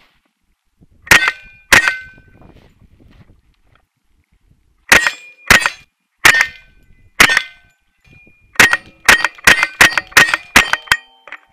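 Semi-automatic rifle fired right beside the barrel-mounted camera: two shots, a pause, four spaced shots, then a quicker string of about nine. A short ringing tone follows several of the shots.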